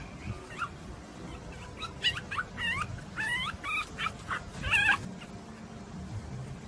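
Pomeranian puppy giving a run of about six high-pitched yips and whimpers over some three seconds, the last the loudest.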